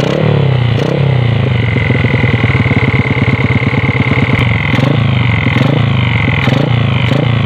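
Honda XRM110 single-cylinder four-stroke engine running and blipped up and down several times, with a steady high-pitched whine through the middle. The noise is the flywheel scraping against the stator coil, its magnet damaged.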